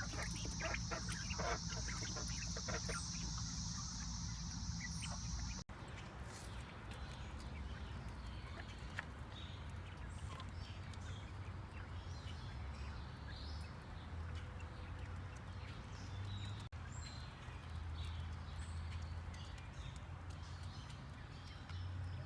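Birds chirping and calling among sharp clicking sounds. A steady high buzz, like insects, runs through the first few seconds and stops suddenly at a cut.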